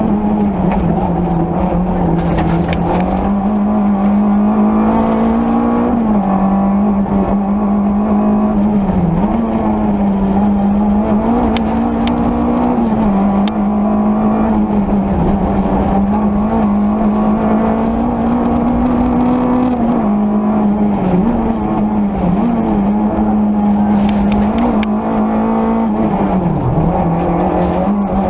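Peugeot 205 Rallye's four-cylinder engine running hard at high revs, heard from inside the rally car's cabin. The pitch holds fairly steady with small rises and falls and several brief dips, and occasional sharp clicks are heard.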